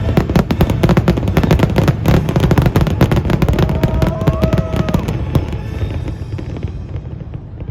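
Fireworks display barrage: a dense, rapid run of bangs and crackles, many per second, that thins out and fades toward the end, with music playing underneath.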